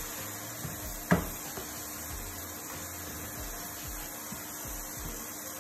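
Spatula scraping and stirring a thick onion-and-spice masala in a stainless steel pan over a steady light sizzle, with one sharp knock of the spatula against the pan about a second in.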